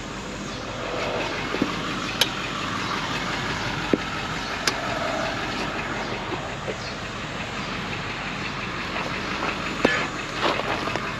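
Steady rattling mechanical noise from a wrecker tow truck and the junk car on its lift, with a few sharp metallic clanks.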